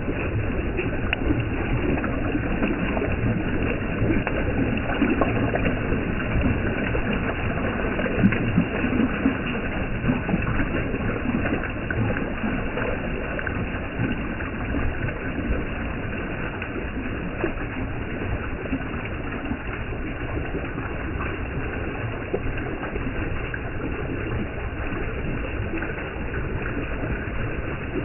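Mountain stream water flowing, a steady even noise throughout.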